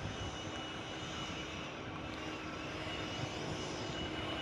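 A steady engine drone, even in level throughout, with a faint high whine running through it.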